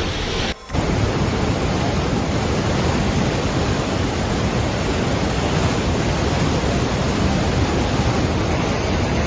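Loud, steady rush of fast-flowing floodwater, with a brief gap in the sound about half a second in.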